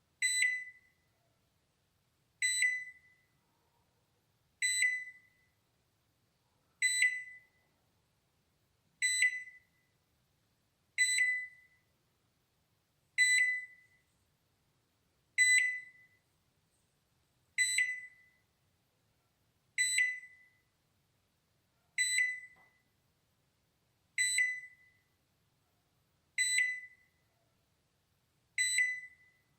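Balay microwave oven's timer alarm: a single high ding that dies away, repeating evenly about every two seconds.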